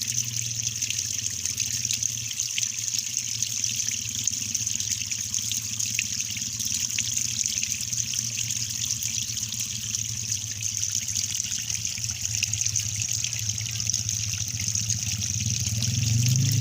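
Water trickling and splashing steadily, an even, continuous flow that grows slightly louder near the end.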